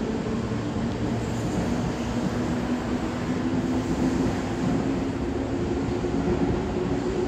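Electric commuter train moving along the platform, its motor whine rising slowly in pitch as it picks up speed, over the steady rumble of wheels on rail.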